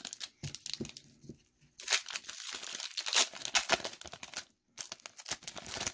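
Foil Pokémon card booster-pack wrapper being torn open and crinkled as the cards are pulled out. It crackles on and off, loudest in the middle, with a short pause near the end.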